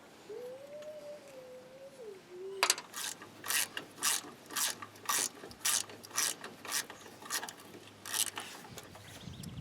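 Ratchet wrench being worked on a nut, clicking in short bursts about twice a second from about three seconds in.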